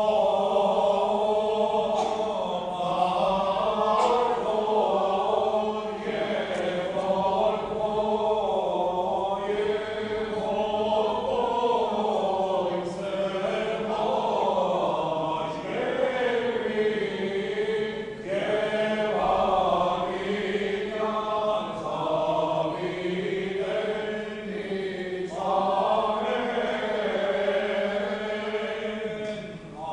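Robed church choir singing Armenian Apostolic liturgical chant unaccompanied, several voices together in a slow, winding melody in long phrases, over a steady low held note.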